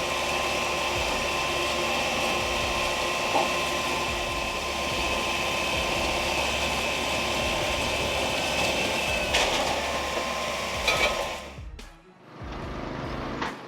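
A wood-processing machine running steadily with a high whine. It cuts off sharply near the end, giving way to a different, quieter machine sound.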